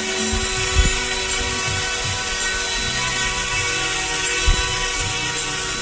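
YuXiang F06 RC helicopter's brushless, direct-drive rotor motor whining steadily with the whir of the spinning rotor as it hovers. Two brief low thumps come about a second in and again after about four and a half seconds.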